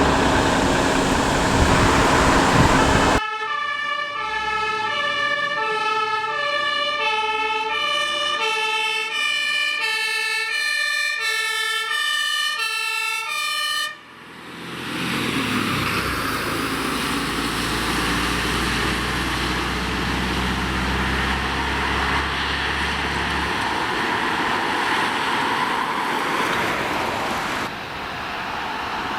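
A fire engine's German two-tone emergency horn (Martinshorn), alternating evenly between a high and a low note, with loud rushing engine and road noise before and after it. The horn starts and stops abruptly, a few seconds in and about halfway through.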